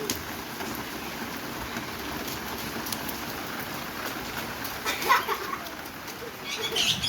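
Heavy rain falling steadily, with a patter of drops. A short, loud, high voice-like call about five seconds in, and more high-pitched calls near the end.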